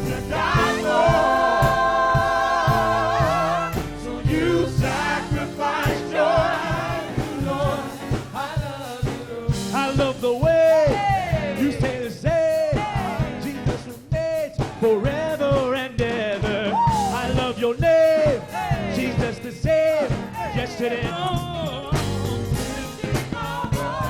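Gospel vocal group singing a song in harmony with music behind them. Held chords open the passage, then bending, gliding vocal runs follow.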